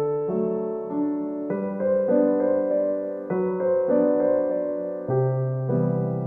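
Background music: gentle piano or electric-piano chords changing about once a second.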